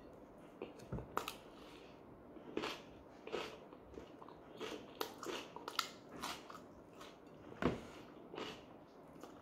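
Close-up chewing of a mouthful of pljeskavica in soft flatbread: irregular wet mouth clicks and smacks, about one or two a second, the loudest a little before the end.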